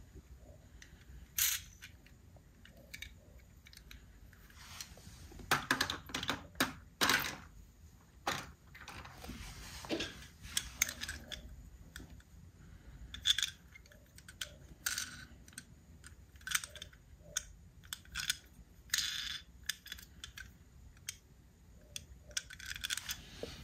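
Irregular clicks, taps and brief scrapes of small toy cars being handled and turned over in the fingers, close to the microphone. The clicks come in a denser, louder cluster about five to seven seconds in.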